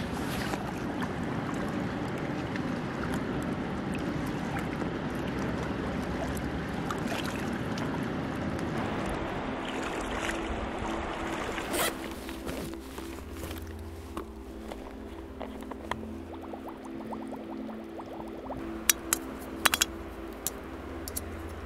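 River water rushing over rocks, a steady wash that fades out about halfway through, leaving a low steady hum. Near the end come a few sharp metallic clicks as a backpacking stove is handled on a gas canister.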